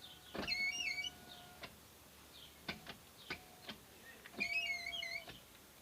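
Škoda Octavia II (A5) power window on an unlubricated door being run in short bursts: the regulator motor hums steadily and the glass regulator gives high, wavering squeaks. There are four runs, the first and last about a second long, each starting and stopping with a click. The squeal comes from the window-regulator rollers and cable, which the owner says squeak badly.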